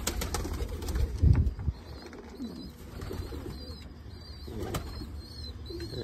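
Domestic pigeons cooing in a loft, with a flurry of wing flaps and clicks in the first couple of seconds.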